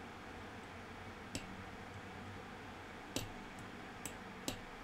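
Four light, sharp clicks spaced irregularly over a faint steady hiss, the loudest two near the middle and near the end: small metal parts and tools of a folding knife being handled during reassembly.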